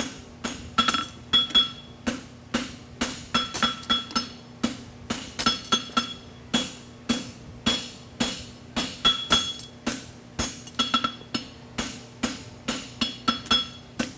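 Blacksmith's hammer striking a red-hot steel horseshoe on an anvil in a steady rhythm of about two blows a second, each blow with a bright metallic ring. The farrier is working the shoe's heel back out to build its weight-bearing surface.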